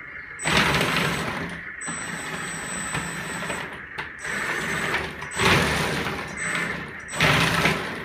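LESU 1/14 DT60 RC hydraulic crawler dozer driving and turning: the mechanical whirring and clatter of its drive and tracks comes in several spurts, over a steady high whine.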